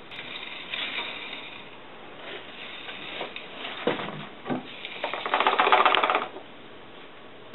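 Small pebbles poured from a tub onto golf balls in a tall jar, clattering, with a few scattered clicks as they settle. About five seconds in comes a loud, dense rattle as the jar is shaken to work the pebbles down between the balls.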